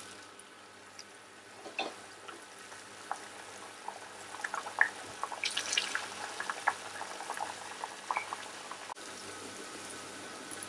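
Aloo puri (spiced potato and wheat dough) deep-frying in hot oil: a steady sizzle with many sharp crackles and pops, which grow busier from about two seconds in.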